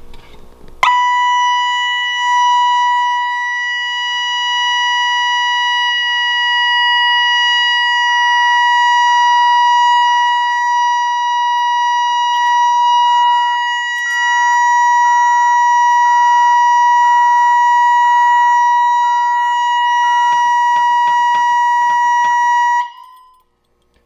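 Security alarm siren, set off by a police panic pull station, sounding one loud, continuous high-pitched tone. It starts abruptly about a second in and cuts off suddenly near the end.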